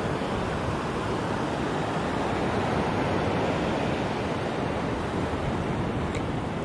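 Sea waves washing against the shore, heard as a steady rushing noise, with wind buffeting the microphone. A faint short tick sounds near the end.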